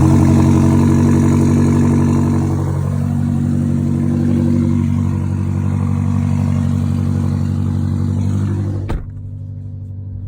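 BMW M5 Competition's twin-turbo V8 running at a steady engine speed. About nine seconds in there is a click and the sound turns suddenly muffled, leaving only a low drone.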